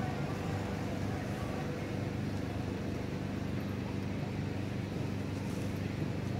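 A steady low mechanical hum, like an engine running at idle, holding an even level throughout.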